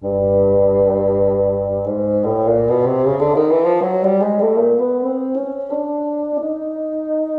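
Solo bassoon playing an étude: it enters on a low held note, climbs through a run of rising notes from about two seconds in, and settles on a higher sustained note.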